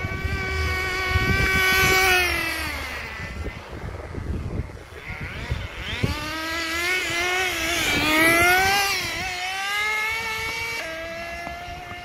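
Toy remote-control car's electric motor whining. The pitch holds steady, drops as the car slows about two to three seconds in, climbs again as it speeds up about halfway through, and near the end settles into a higher steady whine.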